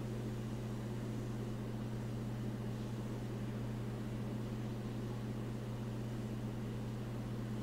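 Steady low hum over a faint hiss, even in level with no changes.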